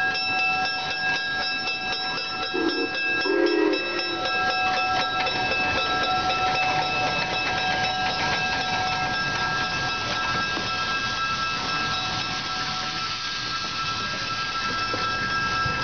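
Locomotive sound: a steady high-pitched whine made of several tones, over a constant hiss. The lowest tone fades about three-quarters of the way through.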